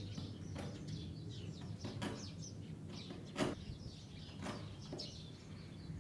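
Small birds chirping and twittering over a steady low rumble, with a few sharp knocks, the loudest about three and a half seconds in.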